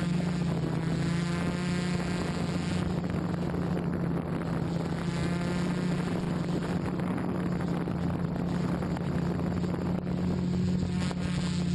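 Multicopter's electric motors and propellers droning steadily in flight, a hum with a rough airy haze over it. The pitch wavers in the first couple of seconds, then holds steady.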